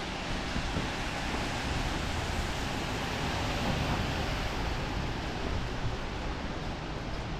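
Steady hiss of rain on a wet city street, even throughout with no single sound standing out.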